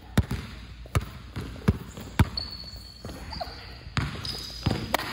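Basketball being dribbled on a hard court floor: sharp bounces roughly every half second to second. A couple of short high squeaks come in the middle and near the end.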